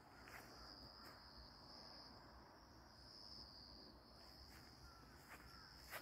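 Faint, steady high-pitched insect trill that swells and fades every second or two, with a few soft footsteps on the dirt path.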